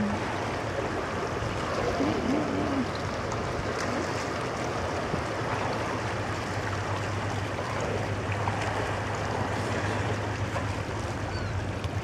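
A steady low mechanical hum, stronger in the second half, over an even rushing noise of water and wind.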